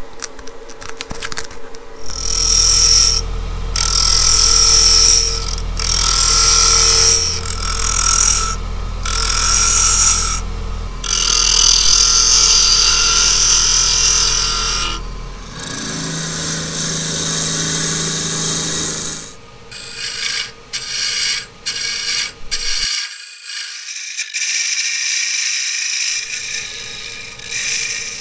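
Wood lathe running with a hand-held turning tool cutting into the spinning wood: a hiss of shavings over the lathe's steady motor hum, starting and stopping as the tool is pressed in and lifted off. The sound changes abruptly several times, and near the end come shorter, choppier cuts.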